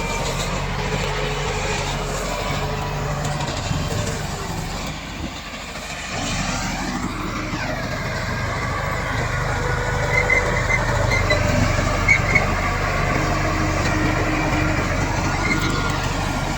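Komatsu D68 bulldozer's diesel engine running and working, dipping briefly about five seconds in and then pulling up again, with a few short high squeaks a little past the middle.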